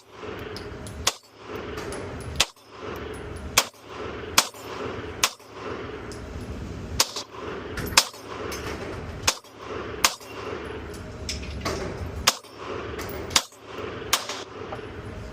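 Glock pistol with Grey Ghost Precision parts firing a slow string of about a dozen shots, roughly one a second, in an indoor range.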